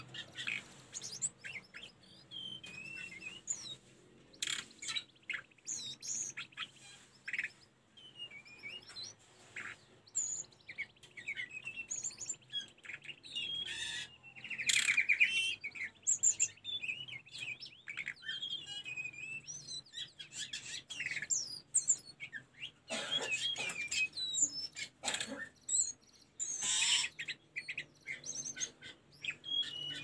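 Hill blue flycatcher singing: a fast, varied run of high chirps, whistles and trills with only brief gaps, including a louder rapid trill about halfway through.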